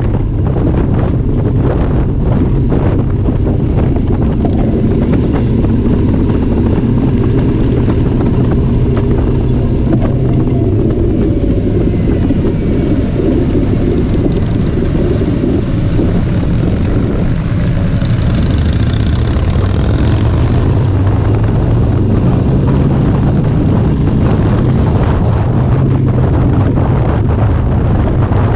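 Harley-Davidson motorcycle's V-twin engine running steadily at cruising speed, with wind rushing over the bike-mounted microphone. The engine note eases off for a few seconds past the middle, then steadies again.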